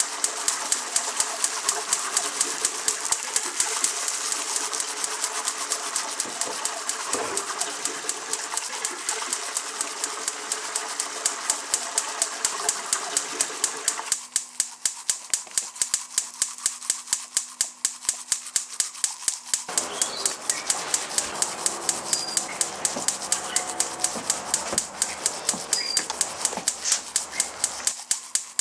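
A steady, fast ticking of sharp clicks, about three a second, over a background sound that changes abruptly twice.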